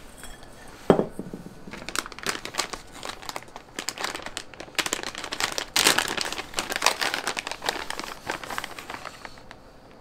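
Plastic packaging crinkling and rustling as it is handled, with one sharp knock about a second in.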